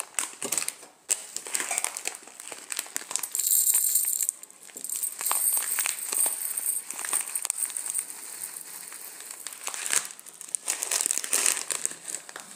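Dry pulses and grains rattling and rustling in a steel pot, with many scattered clicks and clatters.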